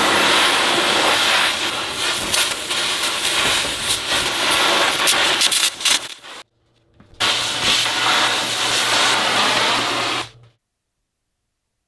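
Oxy-fuel torch flame hissing steadily against a steel hammer head clamped in a vise, with some crackling. It breaks off briefly about six seconds in, resumes with a low hum underneath, and stops about ten and a half seconds in.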